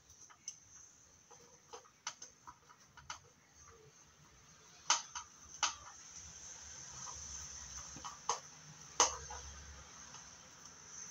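Plastic stick scraping and tapping pressed eyeshadow out of a plastic palette's pans: scattered sharp clicks and scrapes, the loudest about five and nine seconds in.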